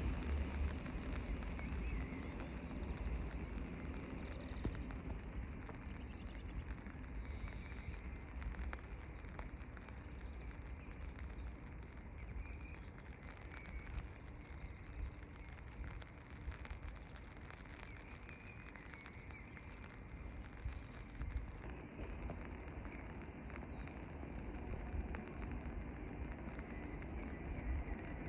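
Quiet railway-station background noise with a low rumble that is loudest at the start and fades over the first couple of seconds, and faint bird chirps now and then.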